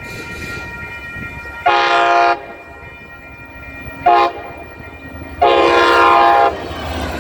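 MBTA MPI HSP46 locomotive's air horn sounded in three blasts: a medium blast, a short one, then a longer one of about a second, each a loud chord of several tones. A low steady rumble sits beneath and between the blasts.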